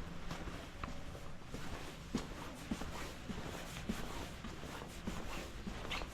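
Footsteps at a steady walking pace, a step a little more often than every half second, over a low steady background noise.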